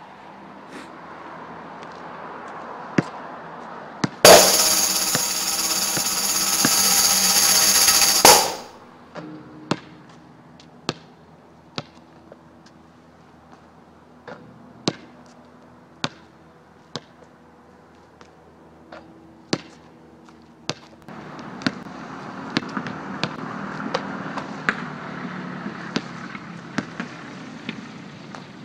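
A basketball thudding sharply on an outdoor asphalt court, one knock about every second, with irregular gaps. About four seconds in, a loud steady noise carrying several held tones comes in over it, lasting about four seconds before cutting off abruptly.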